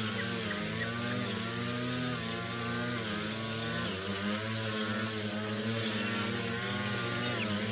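Small petrol engine of a yard tool running steadily, its pitch wavering up and down.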